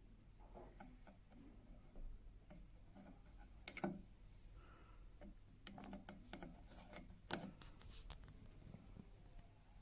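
Faint scrapes and small clicks of a screwdriver turning the adjusting screw of a wooden smoothing plane's adjustable mouth, tightening it so that the mouth insert is pulled down. There are two sharper clicks, about four seconds in and again past seven seconds.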